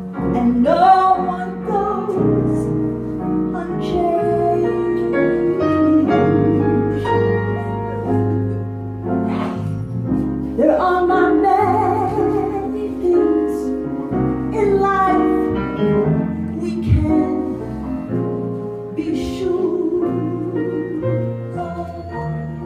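A woman singing a slow jazz-blues ballad live, holding long notes with vibrato, over keyboard and electric bass accompaniment.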